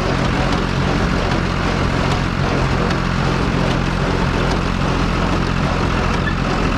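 John Deere 820 tractor engine running steadily under load, pulling a New Idea square baler through the hay.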